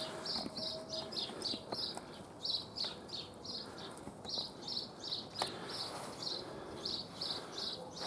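A small songbird chirping over and over: short, high notes about three a second. A faint steady tone fades out about a second in, and a single sharp click comes about five seconds later.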